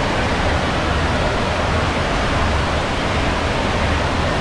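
Steady rush of flowing water, a loud even roar that does not change.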